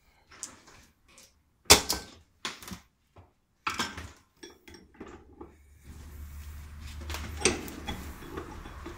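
Metal clanks and clinks of hand tools and scrap copper windings being handled and knocked together, the loudest knock about two seconds in. A low steady hum sets in about two thirds of the way through.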